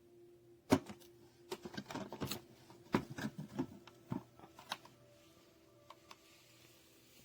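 Irregular sharp clicks and knocks of something being handled for about four seconds, then only a faint steady hum.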